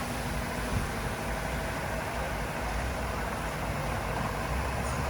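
Heavy equipment diesel engine running steadily.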